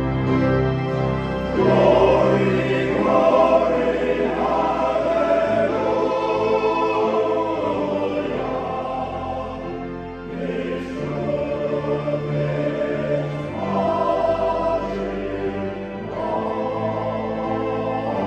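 Male voice choir singing sustained chords, swelling louder about two seconds in and easing briefly near ten seconds before going on.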